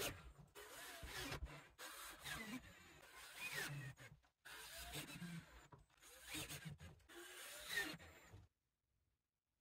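Faint, irregular scraping and rubbing of hand work on building materials, with a few short squeaks, cutting off abruptly into silence a little over a second before the end.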